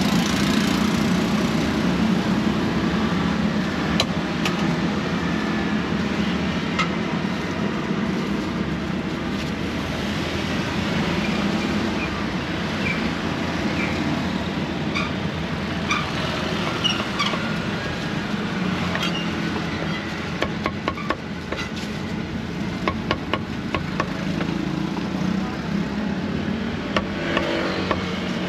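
Busy street-market ambience: a steady hum of traffic and engines with faint voices and scattered sharp clicks and knocks, several in quick succession past the middle.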